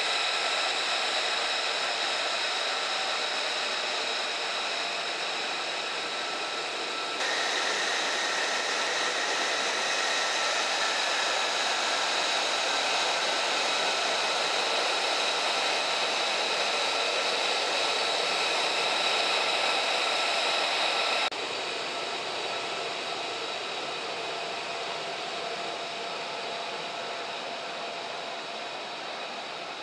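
F-35A Lightning II's F135 turbofan jet engine running at taxi power: a steady high-pitched whine over a rushing roar. The sound jumps abruptly about seven seconds in and again about twenty-one seconds in, and it grows fainter near the end.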